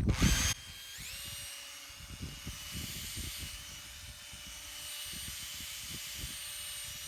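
A small electric motor spins up about a second in and then runs at a steady, even pitch.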